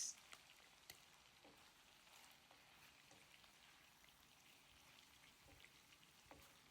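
Faint sizzling and scattered crackles of onions, tomatoes and peppers cooking in vegetable oil in a pot.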